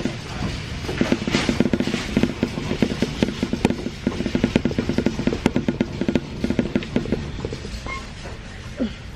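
Music with a steady, pulsing beat.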